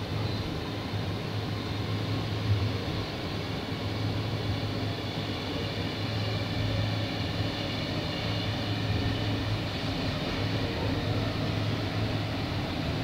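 Interior noise of an S set double-deck electric train carriage: a steady low hum over rumble, with one short knock about two and a half seconds in.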